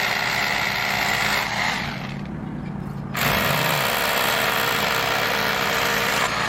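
Hammer drill boring anchor holes for Red Head anchors, in two steady runs: the first stops about two seconds in, and the second starts a second later and runs almost to the end.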